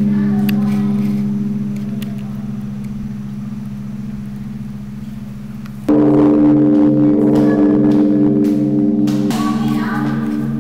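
Large hanging temple bell, struck with a swinging log, ringing with a deep, slowly pulsing hum that fades away. About six seconds in it is struck again and rings out loud.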